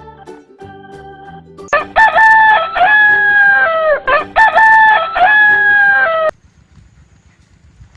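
Two loud rooster crows in a row, each about two seconds long, cutting off abruptly, after a few notes of electronic keyboard music.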